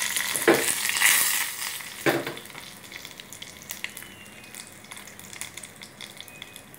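Hot oil sizzling and crackling as a tempering of mustard seeds, fenugreek, dried red chillies, green chillies and curry leaves fries in a small pan. It is loudest for the first couple of seconds, then dies down to a faint crackle.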